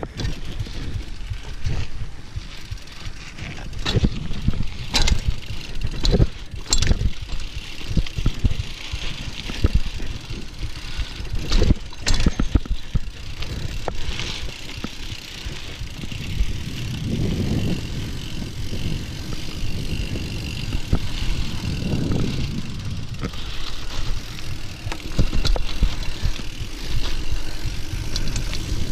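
Mountain bike rolling fast over a dirt singletrack: the tyres give a continuous low rumble and hiss, and the bike rattles and knocks sharply over bumps and ruts.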